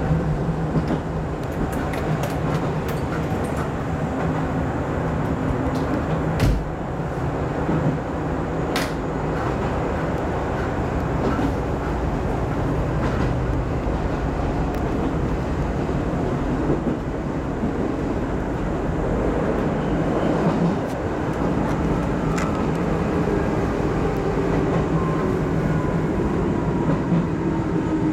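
Izuhakone Railway 5000 series electric train running on the line, heard from inside the driver's cab: a steady hum and rumble of motors and wheels on rail, with a few sharp clicks. Over the last several seconds a whine falls in pitch as the train slows into Iidaoka station.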